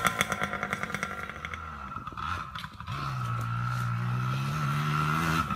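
Small Yamaha dirt bike's engine: its rapid popping fades as the bike rides off, then from about three seconds in a steady engine note holds while it circles the track.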